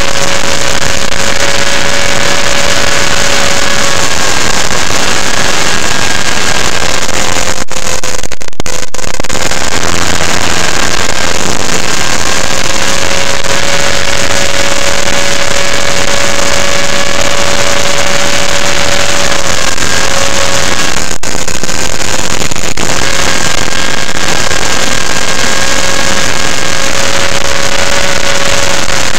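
Electric motor and rotors of an Align T-REX 500 RC helicopter in flight, heard from a camera mounted on the helicopter: a steady, high whine over a loud rushing noise, clipping the recording, with two brief dropouts, about eight and twenty-one seconds in.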